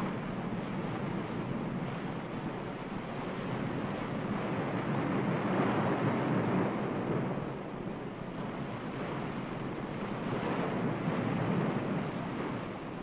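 Rushing surf-like noise of waves on the soundtrack, swelling up about halfway through and again near the end, then ebbing.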